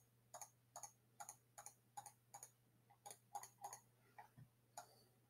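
Faint computer mouse clicks, about two a second, ticking a column of checkboxes one after another.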